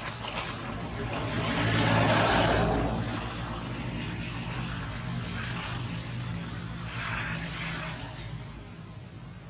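A motor engine passing by, humming steadily, swelling to its loudest about two seconds in, then holding lower and fading near the end.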